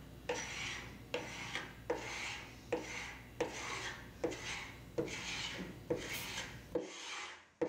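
Carbide hand scraper pulled in repeated strokes across a painted wood-veneer dresser top, rasping off paint and primer. About nine strokes, a little faster than one a second, each starting with a sharp catch as the blade bites. The sound cuts off suddenly about seven seconds in.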